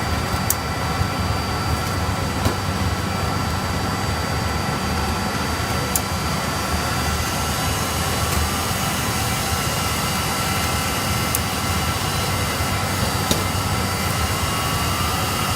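Loud, steady whir of data-centre equipment and cooling fans, with several fixed tones running through it. A few sharp clicks are scattered through it, typical of hardware latches and modules being handled.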